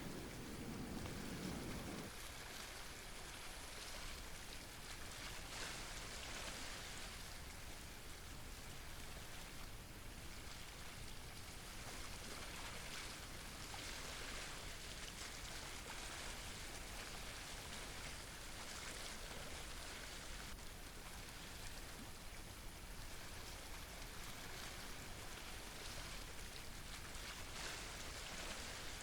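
Steady hiss of water, like rain or surf fizzing on rocks. A lower rumble under it cuts off about two seconds in.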